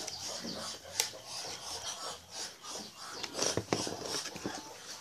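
Plastic housing and circuit board of a metal detector's control box being handled and pulled apart by hand: rubbing and scraping with small clicks, a sharp click about a second in and a run of clicks a little past halfway.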